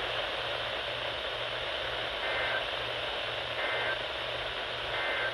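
Emergency Alert System end-of-message code: three short two-pitch data bursts about 1.4 seconds apart, starting about two seconds in. They are received over radio, with steady hiss and a low buzz underneath, and mark the end of the alert.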